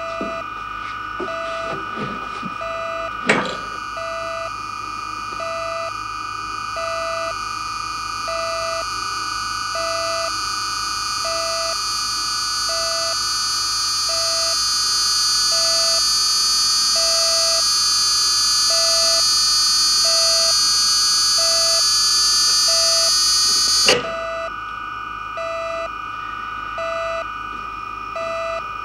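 Electronic science-fiction sound effects of a spaceship's energy cannon powering up. A short beep repeats about every 0.7 s over a steady electronic hum. After a click about three seconds in, a rising electronic whine swells louder, then cuts off suddenly with a click about four-fifths of the way through.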